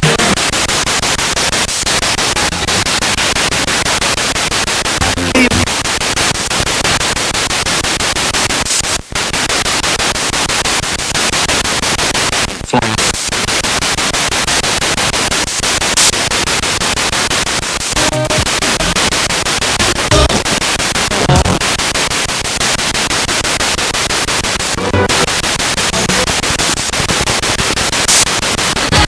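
Spirit box radio sweeping through stations: a loud, steady hiss of static, broken by short dropouts and brief fragments of broadcast sound as it jumps from channel to channel.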